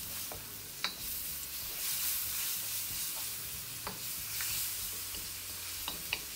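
Sliced onions and spices sizzling in hot oil in a wok as a spatula stirs them. A few sharp clicks sound where the spatula scrapes and taps against the pan.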